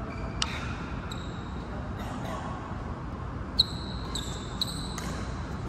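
Badminton play on an indoor court: a sharp click about half a second in, then a quick run of high-pitched squeaks from shoes on the court floor in the second half, the first of them the loudest.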